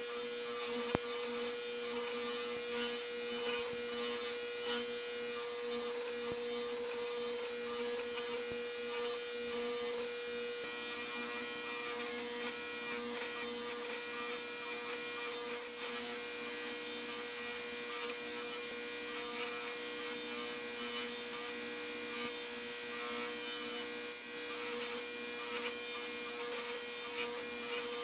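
Electric bench motor running with a steady hum, spinning a soft carding wheel that brushes loose rust off rust-blued steel parts held against it; scratchy brushing and light ticks of metal on the wire, busiest in the first ten seconds or so. This is the carding step of rust bluing, clearing the converted rust without harming the finish.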